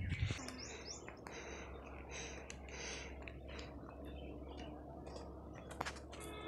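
Birds chirping in the scrub: a string of short, high, repeated calls over a low steady background hum.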